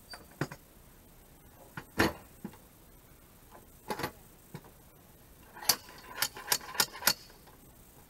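Scattered wooden knocks and clunks as sawn boards are shifted on the chainsaw mill's frame, the loudest about two seconds in, then a quick run of about six sharp knocks near the end.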